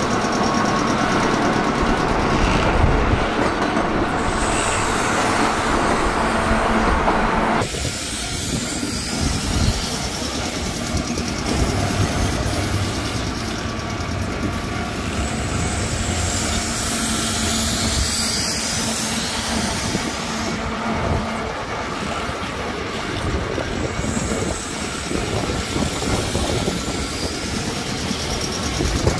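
Kintetsu electric train running along the track, with a steady wheel-on-rail rumble; the sound drops abruptly about eight seconds in, then continues.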